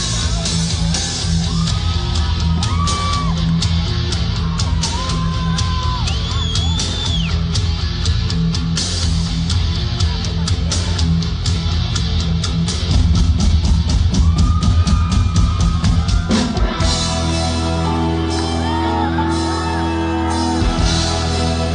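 Live rock band playing an instrumental intro: driving drums with electric guitar bending notes, with shouts and whoops from the crowd. About sixteen seconds in it changes to sustained organ chords.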